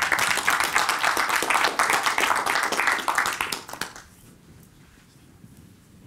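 Audience applauding. The clapping dies away about four seconds in.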